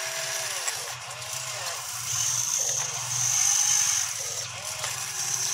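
Small electric motors and gears of an RC excavator whirring in short spells as the boom and bucket move, the pitch rising and falling with each movement over a low buzzing hum.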